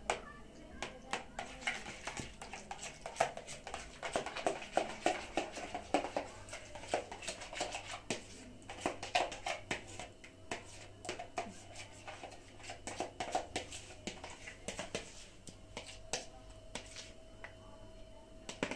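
A metal spoon clicking and scraping against a plastic bowl in quick, irregular taps as yogurt is stirred and then spooned out onto plates.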